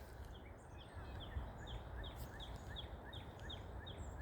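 A bird calling in a steady series of short, falling notes, about three a second, over a low outdoor rumble.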